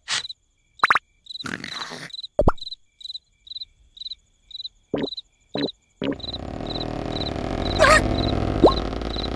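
Cartoon night soundscape: a cricket-like chirp repeating about twice a second, broken by short comic sound effects (a plop, a brief whistle, clicks) in the first six seconds. About six seconds in, a loud continuous rumbling noise sets in and holds, with a short rising whistle near the end.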